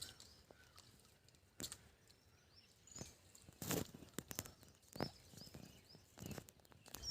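Faint outdoor ambience: a few scattered knocks and rustles, with birds chirping faintly.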